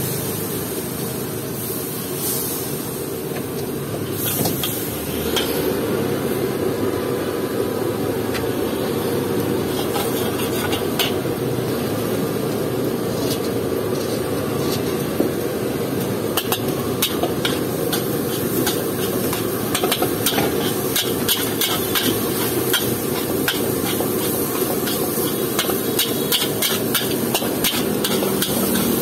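Metal spatula scraping and clanking against a steel wok as fried rice is stirred and tossed, with frying sizzle over the steady rush of the gas burner beneath. The clanks come more often in the second half.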